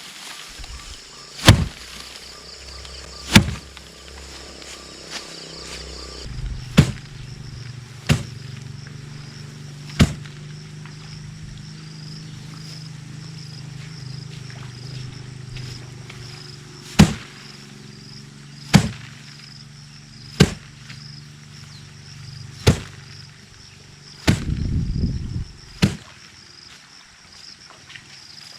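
Sharp single blows struck at uneven intervals, about ten in all, over a steady high insect buzz. A low steady hum comes in about six seconds in, and a short burst of low rumbling noise follows near the end.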